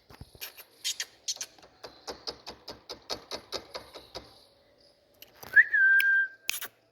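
Indian ringneck parrot making a run of quick, evenly spaced clicks, about five a second, then a single held whistle about a second long near the end.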